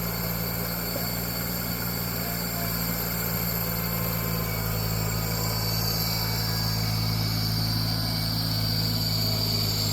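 An engine idling steadily, a low, even hum that holds one speed throughout.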